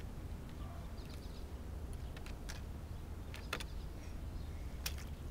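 A few short, sharp clicks or taps over a steady low rumble.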